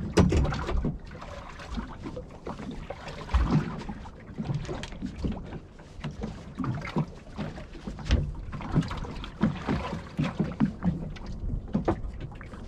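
Small fishing boat at drift: irregular knocks and thumps on the hull and deck, with water slapping the hull and clothing rustling as a shirt is pulled off.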